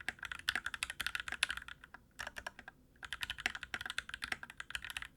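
Typing on a Gamakay CK68 mechanical keyboard, rapid keystroke clicks in quick runs with a couple of short pauses around two to three seconds in. Its plate-mounted stabilizers have been clipped and lubed with dielectric grease.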